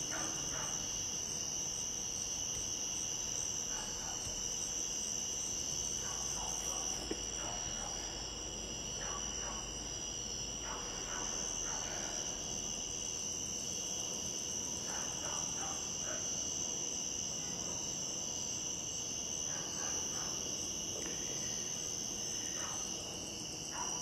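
Late-summer night insect chorus: crickets trilling in a steady, high-pitched, unbroken drone.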